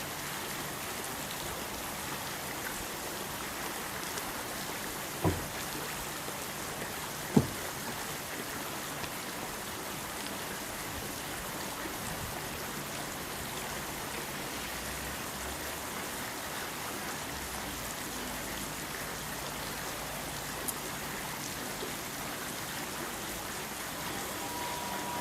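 Steady hiss of water, with two short sharp knocks about five and seven seconds in.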